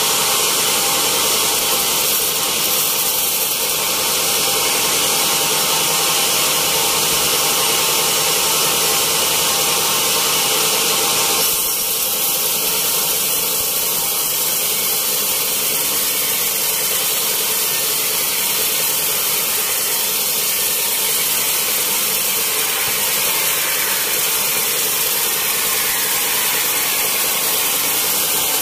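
Band sawmill cutting a wet teak log lengthwise, its blade and motor running with a steady sawing hiss. The sound drops a little and changes about twelve seconds in.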